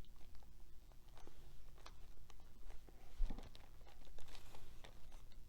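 Small clicks, taps and rustles of hands handling balsa wing parts on a workbench, with a soft thump about three seconds in.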